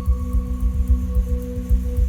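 Background music: a sustained droning tone held steady over a low pulsing beat.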